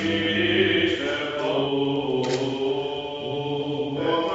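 Greek Orthodox liturgical chant: a man's voice chanting in long held notes that move slowly in pitch, during the crowning of the bride and groom.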